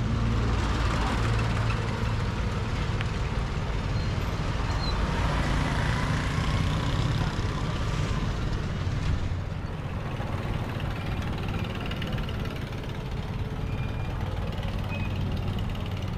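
Street traffic: engines of passing vehicles running with a steady hum, a little louder in the first half and easing off about nine and a half seconds in.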